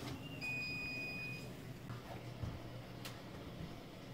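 A single electronic beep from a kitchen appliance, one steady high tone held about a second, followed by a couple of faint clicks.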